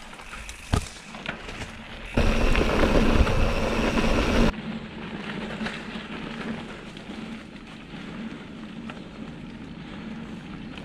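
Rockrider XC100S mountain bike riding over a grassy forest track: tyres rolling and crackling on dirt and vegetation, with rattles from the bike and wind on the microphone. A sharp knock comes just under a second in, and about two seconds in a much louder stretch of rumbling noise starts suddenly and cuts off about two seconds later.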